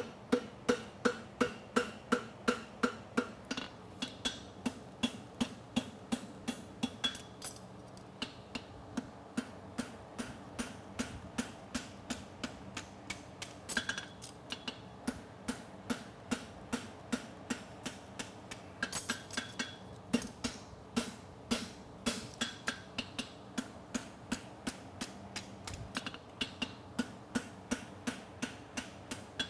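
Farrier's hammer forging a red-hot steel horseshoe bar on an anvil, in steady runs of about three blows a second with short breaks, each blow ringing off the anvil.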